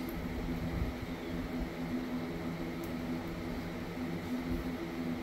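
Steady low machine hum holding several fixed pitches, with a couple of soft low bumps, one about a second in and one near the end.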